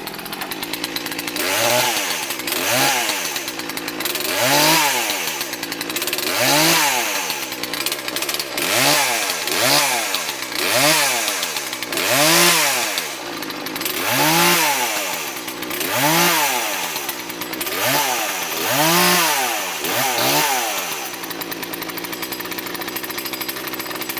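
A 40cc two-stroke chainsaw engine runs and is revved about a dozen times, each time rising in pitch and falling back to idle. It idles steadily near the end.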